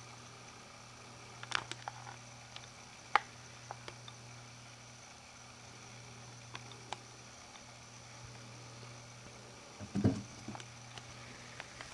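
Sparse light taps and clicks over a faint steady hum, with a louder bump and rustle about ten seconds in: a kitten batting at the camcorder's lens cap.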